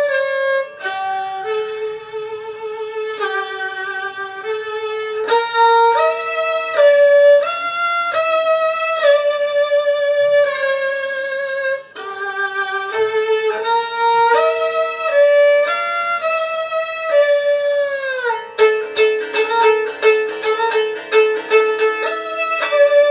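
Solo violin playing a slow melody of held notes with vibrato. About 18 seconds in, the pitch slides down and the playing changes to quick, short repeated notes.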